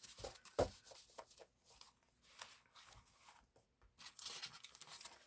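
Sheets of paper and sticker sheets handled and sorted by hand: faint, intermittent rustling with light taps and clicks.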